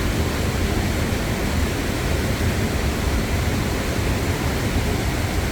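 Steady rushing of a waterfall and river: a continuous, even roar of falling water with no breaks.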